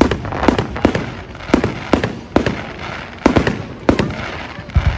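Public fireworks display: aerial shells bursting in quick succession, a sharp bang every half second or so, with crackle between the bangs.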